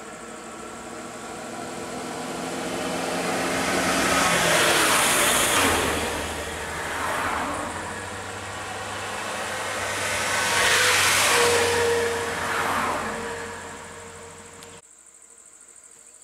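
Road traffic passing close by, one vehicle after another: a diesel Ashok Leyland bus and then other cars and a light truck, the engine and tyre noise swelling twice to a peak and falling away in pitch as each goes past. The traffic sound cuts off abruptly near the end, leaving a faint background.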